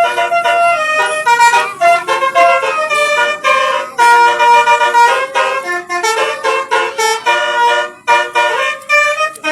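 Tour bus's 'telolet basuri' multi-tone musical horn playing a quick tune of short stepping notes, with a few brief breaks.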